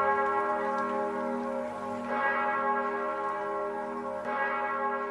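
Church bells ringing, with new strokes about every two seconds over long, overlapping ringing tones.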